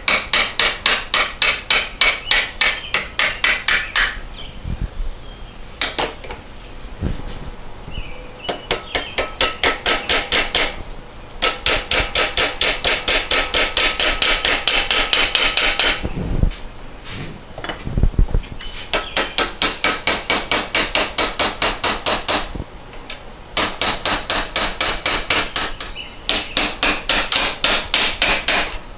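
Hand tool work on a metal pedal-cluster part: fast, sharp metal-on-metal strokes, about five a second, in runs of a few seconds with short pauses between them.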